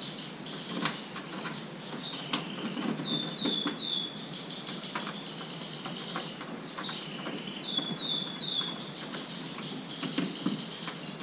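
Canaries singing: runs of quickly repeated chirping notes alternating with long held trills, with a few light clicks and knocks from parts being handled.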